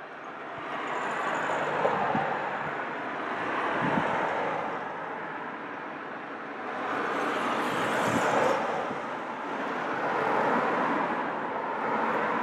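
Road traffic passing on a wet road, the tyre noise swelling and fading in about five waves as vehicles go by one after another.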